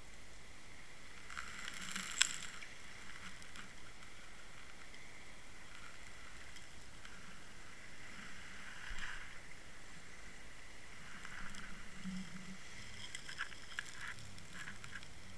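Muffled underwater noise picked up by a Water Wolf fishing camera inside its waterproof housing as it drags and rolls over a sandy seabed, with scattered clicks and scratches of sand and shell against the case. One sharp click comes about two seconds in, and more clicks bunch together near the end.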